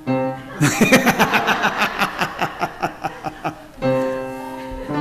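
Soft held keyboard chords, broken about half a second in by a burst of laughter, a quick run of 'ha' pulses lasting about three seconds, before the held chords carry on near the end.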